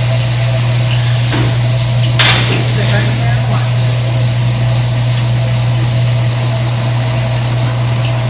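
Front-load washing machine running with a steady low hum and a fainter steady higher whine, with one sharp click about two seconds in.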